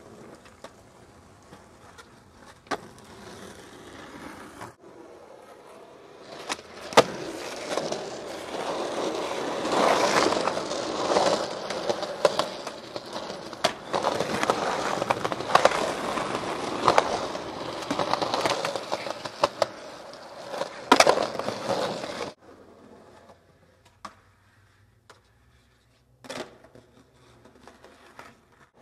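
Skateboard wheels rolling on concrete, with sharp pops and landing clacks of the board. A long stretch of rolling in the middle is broken by loud cracks near its start and end; the rest holds only a few isolated clacks.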